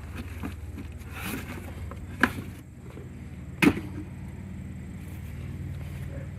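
Handling noises from unpacking a new chainsaw: a soft rustle and two sharp knocks, about two and a half and three and a half seconds in, over a steady low hum.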